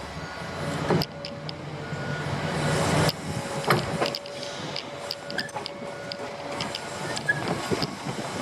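Dump truck engine running as it backs up, a steady low hum with scattered clanks and knocks.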